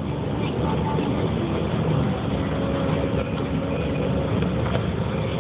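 Steady rumble of a road vehicle on the move, heard from inside it: engine and road noise with no breaks or sudden sounds.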